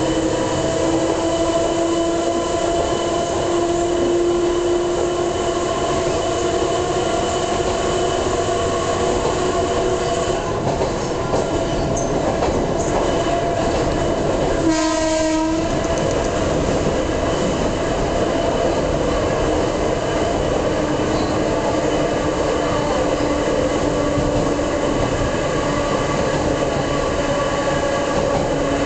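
Interior of a Moha 220-series electric railcar running at speed, its nose-suspended (tsurikake) traction motors and gears whining with a steady tone over wheel and rail rumble. The pitch rises slightly over the first few seconds and then eases as speed changes, with a brief one-second break in the sound about halfway through.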